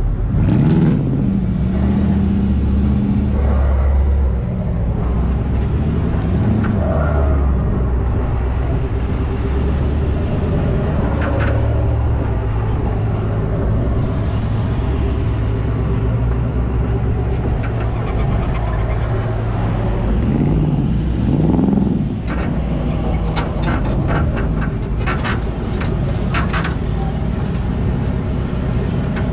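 Pickup truck engine running with a steady low rumble while cruising slowly on sand. The engine note swells up and falls back twice, right at the start and about twenty seconds in. A burst of sharp crackles comes near the end.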